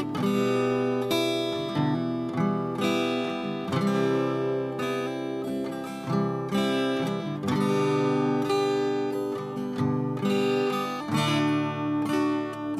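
Background music: an acoustic guitar strumming and picking chords, the notes changing every second or so.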